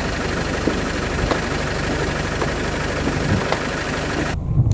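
Vehicle engine running steadily under a loud, even hiss. The hiss cuts off abruptly near the end, leaving only the low engine sound.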